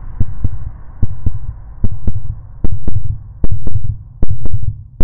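Deep heartbeat-like thumps in pairs, about one pair every 0.8 s, growing louder over a fading low drone: a heartbeat effect in a film trailer's sound design.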